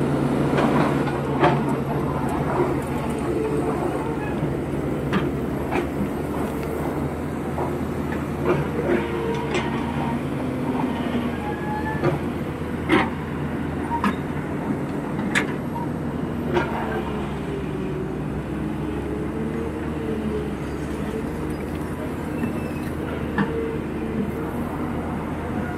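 Hydraulic excavator working: the diesel engine runs steadily under load with a wavering hydraulic whine, broken by sharp clanks and knocks from the bucket, soil and stones.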